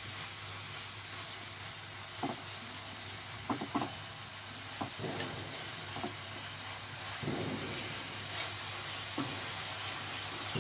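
Chicken strips sizzling in oil in a nonstick pan as they are stirred and turned with a silicone spatula, sautéing with ground spices and no water, with short scrapes of the spatula against the pan every second or so. The sizzle grows a little louder from about seven seconds in.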